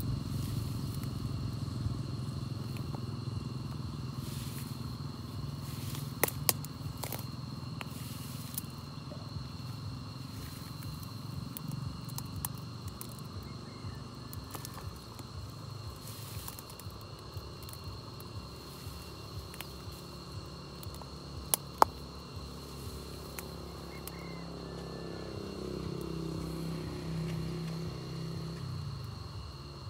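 A low, steady motor hum that wavers slightly and rises in pitch near the end, with a thin high steady tone above it and a few sharp clicks.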